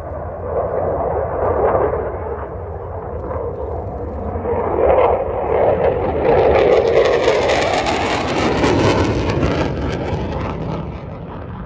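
Eurofighter Typhoon's twin EJ200 turbofan jet engines roaring as the fighter flies by, swelling to their loudest, with a crackle, about halfway through, then easing off.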